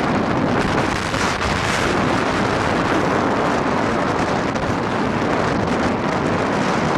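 Strong wind blowing across the microphone: a loud, steady rushing noise with no break.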